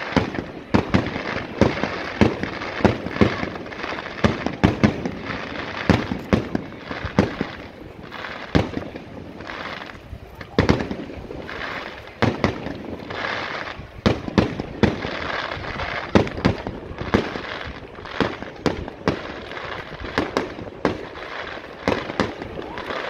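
Aerial firework shells bursting in a rapid, irregular series of loud bangs, with crackling from the bursting stars in between.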